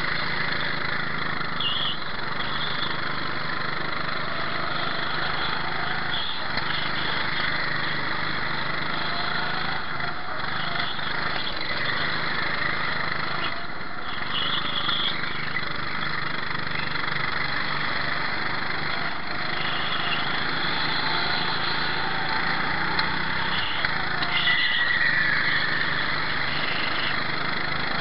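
Go-kart engine running at racing speed, heard from on board, its pitch rising again and again as the kart accelerates out of corners, over a steady rush of air and tyre noise.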